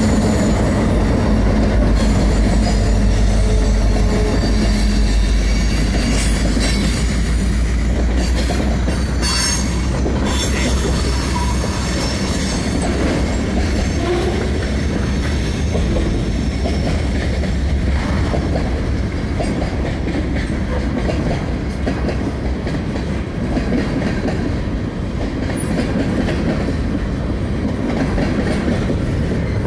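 Freight train cars rolling past close by: a steady rumble and clatter of steel wheels on rail, with several sharp clanks several seconds in. The low drone of the Arkansas & Missouri SD70ACE diesel locomotive fades over the first few seconds as it moves away.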